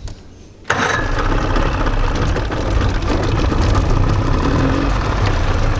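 Small tiller-steered outboard motor starting up about a second in, catching at once and then running steadily at idle with a low rumble.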